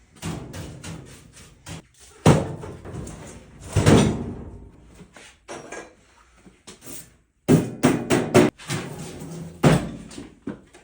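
A run of knocks, clanks and thuds as things are handled, shifted and set down in a workshop, with several heavy impacts: about two seconds in, about four seconds in, a cluster around eight seconds, and one near the end.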